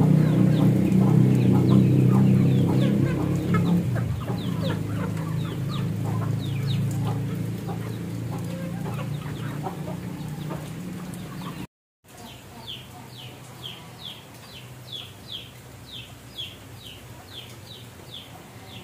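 Domestic chickens clucking, over a low steady hum that fades away during the first ten seconds. After a short dropout, high falling peeps repeat about three times a second.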